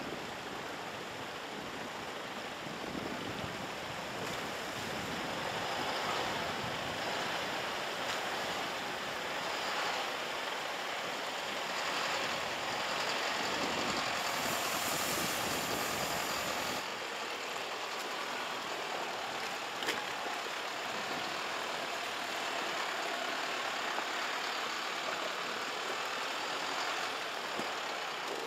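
Mercedes-Benz Unimog U 4023's four-cylinder diesel engine running at low revs as the truck crawls through a rocky mountain stream, over the steady rush of the water. The engine's low sound thins out more than halfway through, leaving mostly the rushing stream.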